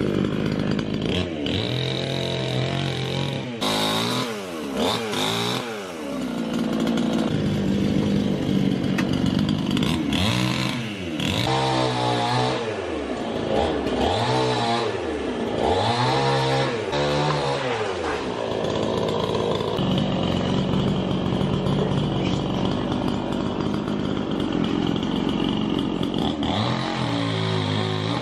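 Chainsaw cutting tree branches, its engine revving up and dropping back again and again, then running at a steadier pitch for several seconds before revving again near the end.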